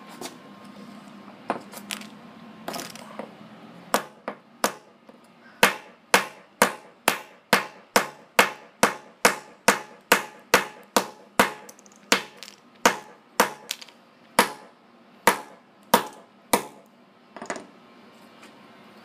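Small claw hammer pounding a Nokia phone battery lying on a concrete floor. A few scattered blows come first, then a steady run of sharp strikes about two a second for roughly twelve seconds, tailing off into a few spaced blows near the end.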